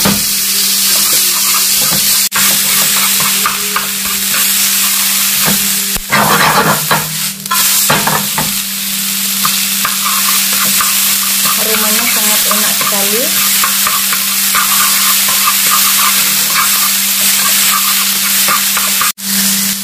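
Sliced onions sizzling in hot oil in a nonstick frying pan, wilting as they sauté, while chopsticks stir them and tap and scrape against the pan. The stirring gets louder and busier about six to seven seconds in.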